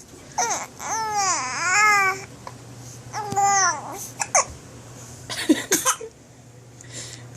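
A baby fussing: two drawn-out, whiny coos that rise and fall in pitch, followed by a few short, sharp sounds about four and five and a half seconds in.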